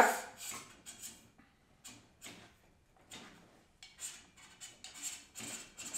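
Shifter-kart axle being slid by hand through its bearings in the chassis: a series of short, faint scrapes and light clicks of metal on metal.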